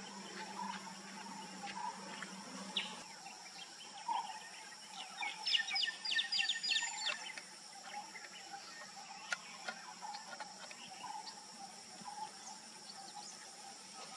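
Outdoor ambience of insects shrilling steadily, with scattered bird calls. About five seconds in comes a quick run of about ten sharp bird notes lasting two seconds.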